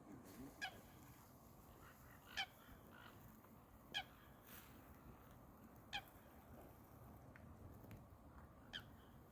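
Waterfowl calling: five short, nasal honking calls, spaced about one to three seconds apart, over a faint background.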